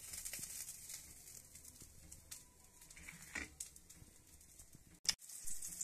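A plastic spatula gives a few faint knocks and scrapes as a pan-fried chapati sandwich is lifted out of a non-stick pan and set on a plate, over a faint fading hiss from the hot ghee.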